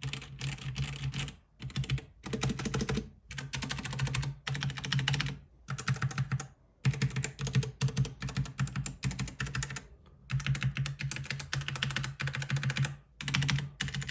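Gamepower Overlord mechanical keyboard with red linear switches being typed on fast, in runs of rapid key clicks a few seconds long broken by brief pauses: a typing sound test.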